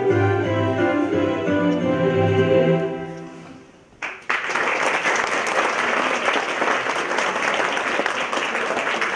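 A choir, with piano, holds its final chord, which fades away about three seconds in. A moment later the audience breaks into applause, which runs on steadily.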